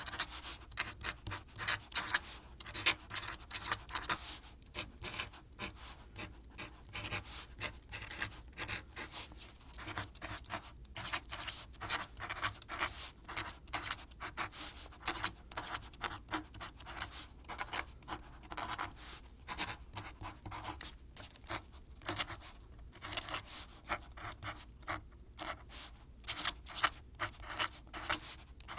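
Fast, uneven scratching and tapping strokes, many a second, going on without a break.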